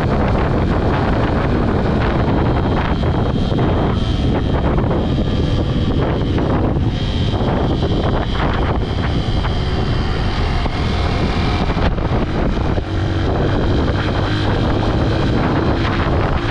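Honda XR125L single-cylinder motorcycle engine running steadily on the move, with wind rushing over the GoPro's microphone.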